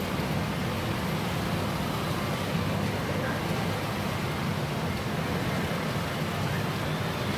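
Steady, dense din of a busy pachinko hall: many machines and their balls blending into one even noise.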